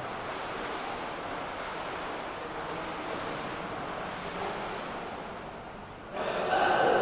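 Water splashing from a swimmer's strokes, a steady wash of noise echoing in an indoor pool hall. About six seconds in, a louder sound with a steady pitch cuts in.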